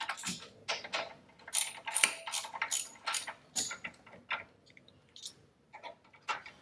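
Half-inch drive ratchet with a T45 Torx socket clicking and clinking on the rear belt-tension adjuster bolts, in quick irregular bursts that thin out to scattered clicks after about four seconds.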